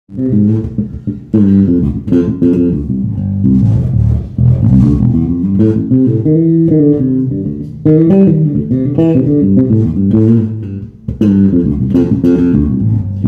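Six-string electric bass with an ash body, maple neck and Aguilar humcancelling pickups and preamp, plucked with the fingers in runs of notes and chords. There is a brief drop in level about eleven seconds in.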